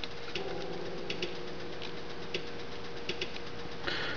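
Faint, scattered clicks from the controls of an Arduino-based sequencer being worked (its rotary encoder and buttons), over a steady low hum.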